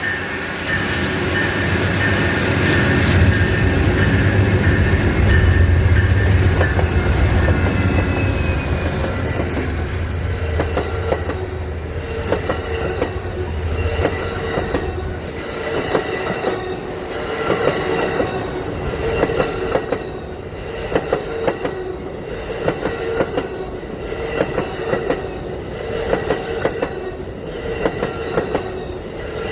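Northbound Amtrak Auto Train passing. The diesel locomotive's low engine rumble fills about the first half and then fades. Its cars follow, rolling by with a steady clickety-clack of wheels over the rail joints and a light wheel squeal.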